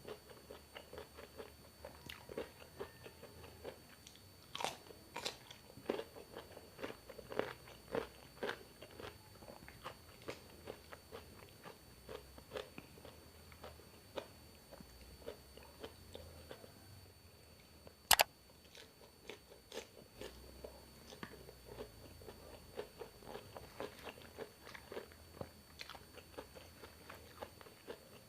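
Close-miked eating: a person biting and chewing with a steady stream of wet mouth clicks, and louder bites about five to eight seconds in. A single sharp click sounds at about eighteen seconds.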